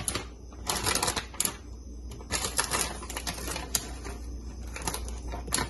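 Rapid clicking and rattling in several short bursts, from a spoon and spice container being handled while chilli powder is measured out by the tablespoon.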